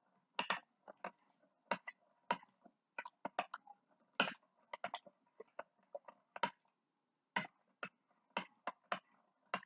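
A metal spoon clinking against the inside of a glass measuring cup while stirring lemonade, in irregular clinks of two or three a second.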